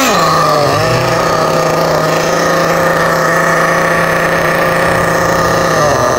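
Nitro engine of a Losi 8IGHT-T 1/8-scale truggy idling steadily just after starting, a buzzing small-engine note at a constant pitch that drops slightly near the end.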